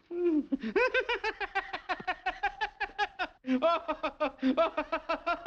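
A man's voice letting out a fast, even string of short yelping, giggle-like syllables, about seven a second, with a brief break about three and a half seconds in.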